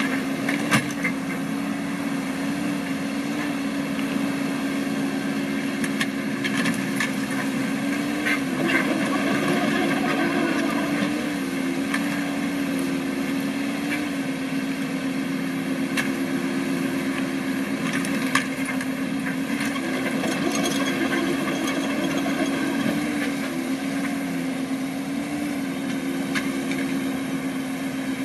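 Kobelco SK045 mini excavator's diesel engine running steadily while it digs, its pitch dipping briefly every few seconds as the hydraulics take load. A few short clanks from the machine's digging.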